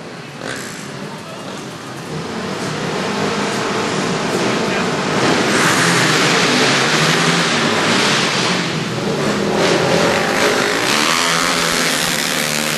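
Several racing ATV engines revving and accelerating together, getting louder from about two seconds in and falling away near the end, their pitch rising and falling.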